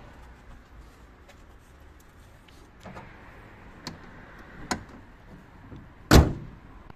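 A car bonnet being shut with one loud slam about six seconds in, after a few lighter knocks and clicks.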